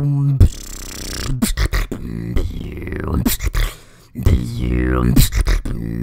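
Solo vocal beatboxing: a held, pitched vocal bass cut up by sharp percussive clicks and hits, a hissing burst about half a second in, and falling vocal sweeps around halfway and near the end. There is a brief drop to a much lower level about four seconds in.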